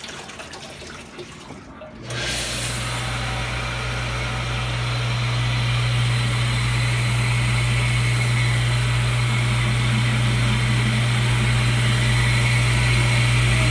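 Commercial bottle-washing machine's wash pump starting about two seconds in, then running steadily: a strong low hum under a loud, even rush of water spraying inside the machine, the sanitizer wash cycle under way.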